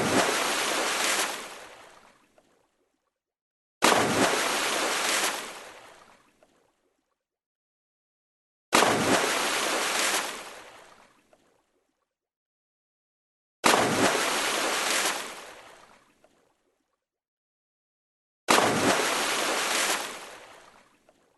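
Water splash sound effect played five times, about five seconds apart. Each one starts suddenly, holds about a second and a half of dense splashing water noise, then fades out, with dead silence between repeats.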